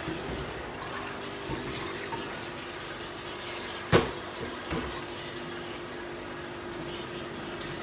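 Water running steadily from a kitchen tap, with one sharp clink about four seconds in.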